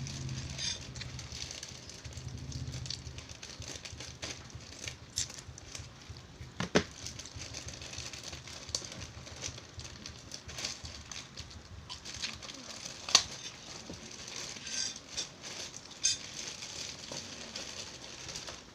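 Gift wrapping and packaging crinkling and crackling as a present is opened by hand: a continuous run of rustles and small clicks, with two sharper snaps, the first about a third of the way in and the second past the middle.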